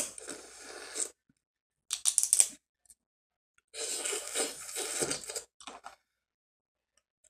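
Close-up eating sounds: lip smacks and sucking on fingers and shellfish meat, with crackly snaps of shells being cracked and peeled. They come in three short bursts: one at the start, one about 2 s in, and a longer one from about 4 to 5.5 s, with silent gaps between.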